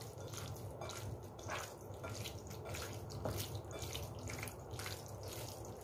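Bare hand squishing raw sliced beef through a sticky marinade of starch, soy sauce and oil in a glass bowl: faint, irregular wet squelches and smacks.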